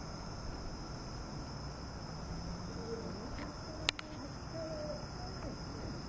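Evening insect chorus: crickets trilling steadily at a high pitch over a low background rumble, with one sharp click about four seconds in.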